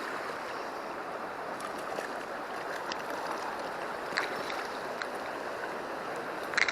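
River stream water flowing, a steady rush, with a few faint clicks and a sharper cluster of clicks near the end.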